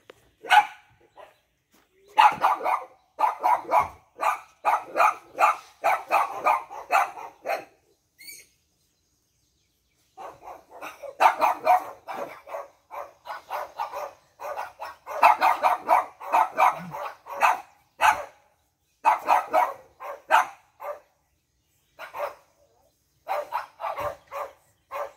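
Pug puppies barking during rough play: runs of short yaps, two or three a second, in several bouts with brief pauses between.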